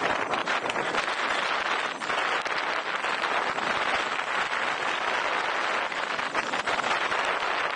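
Wind rushing and buffeting over the microphone of a camera on a fast-moving electric unicycle ride: a steady, loud, flickering rush with no distinct tones.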